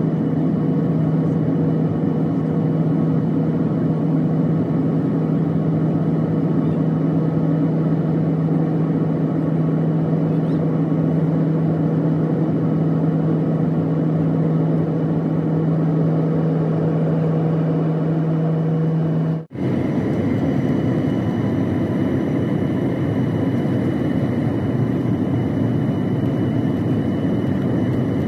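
Jet airliner cabin noise heard from a window seat over the engine: a steady engine rumble with a constant low hum while flying low over the city. About two-thirds of the way in it cuts out abruptly and resumes as a broader rush of engine and airflow, without the hum, as the plane comes in low near the runway to land.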